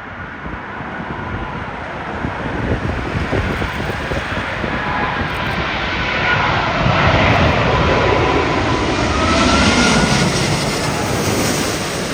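Jet airliner on landing approach passing close by: the engine noise swells over several seconds to a peak, then begins to fade, with whining engine tones that slide in pitch. Wind buffets the microphone throughout.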